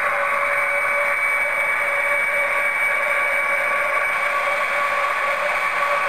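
Model diesel locomotives running along the layout track: a steady whir with a constant high hum from the motors and wheels.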